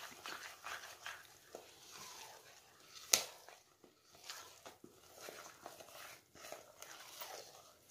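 Spoon stirring thick cornbread batter in a plastic mixing bowl, faint and irregular, with one sharp click about three seconds in.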